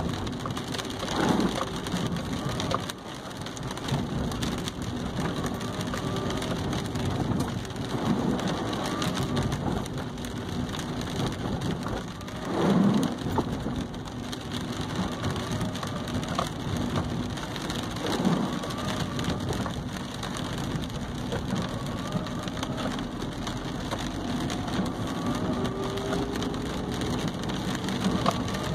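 Rain pattering on the car's roof and windshield, heard from inside the moving car over the steady hum of the engine and tyres on wet pavement. A few louder swells come and go at irregular spacing.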